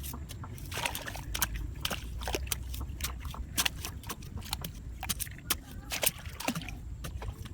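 Shallow water sloshing and splashing, with many scattered, irregular clicks and splashes over a low rumble.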